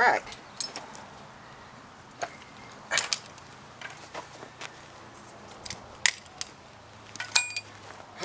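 Scattered light metallic clinks and knocks of tools and loose parts being handled, with a short ringing clink about seven seconds in.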